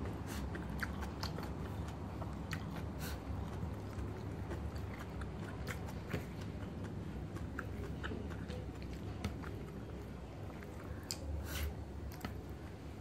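A person chewing food, with frequent small wet mouth clicks and smacks.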